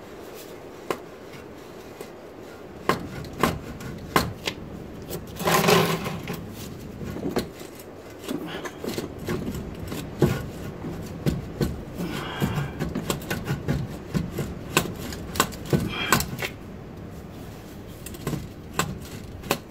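Irregular metallic clicks and knocks of hand tools working on the rusted fixings of a car exhaust's front flexi pipe from underneath, the clicking coming in quick runs like a ratchet being worked. A longer, louder grating noise about six seconds in.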